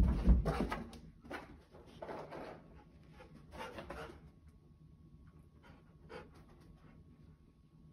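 A Siberian husky panting, in several breathy bursts over the first four seconds and once more about six seconds in.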